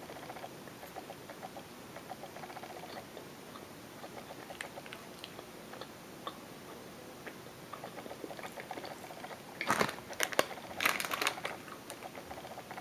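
A person chewing a bite of soft muffin close to the microphone, with small mouth clicks. About ten seconds in, a clear plastic wrapper crinkles loudly, twice in quick succession.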